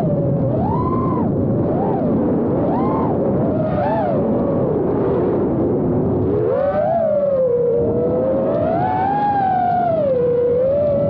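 FPV quadcopter's motors and propellers whining, the pitch swooping up and down with the throttle about once a second, then in slower, longer swells in the second half.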